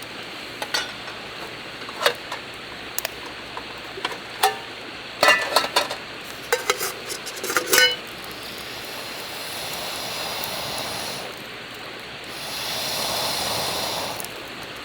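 Metal cookware and utensils clinking and clanking in quick irregular knocks, some ringing briefly. About halfway through, a steady sizzle of food frying takes over and swells louder near the end.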